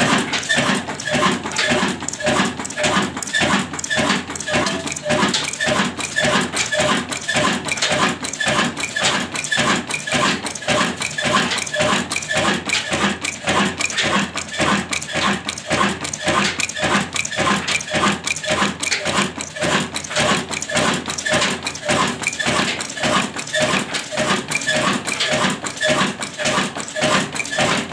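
Insaf Daska diesel engine running steadily, a loud, even beat of several firing strokes a second.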